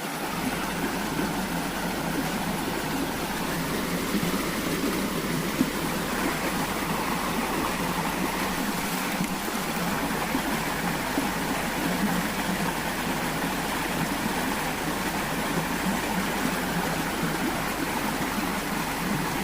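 Mountain stream water rushing: a steady, even noise with no breaks.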